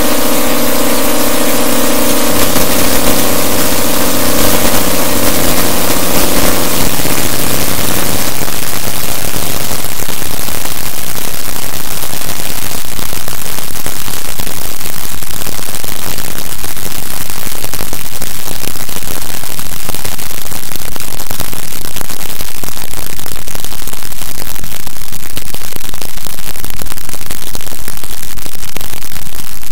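Harsh noise music, very loud: a drone of several held steady tones over hiss for about the first seven seconds, then a dense wall of static that carries on unbroken.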